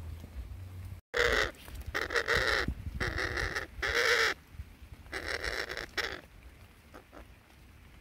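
Parrots giving harsh, loud squawks: five drawn-out calls in a row, each about half a second to a second long, the last one fainter.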